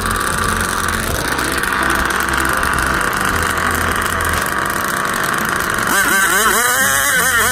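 An engine running steadily. About six seconds in, a pitched engine note rises and falls several times, like revving.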